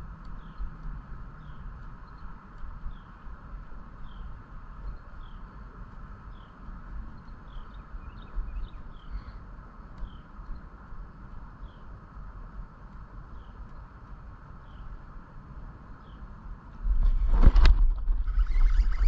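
Outdoor animal calls: a short falling chirp repeating about every three-quarters of a second over a steady hum. Near the end a sudden burst of loud rumbling noise cuts in.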